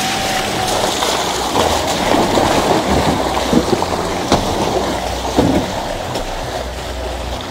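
An off-road vehicle driving through a muddy, waterlogged track, its tyres splashing and churning through mud and water, with scattered sharp splashes and knocks.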